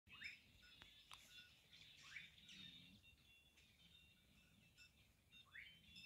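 Faint birdsong: several birds chirping, with a quick rising call repeated a few times among many short high notes.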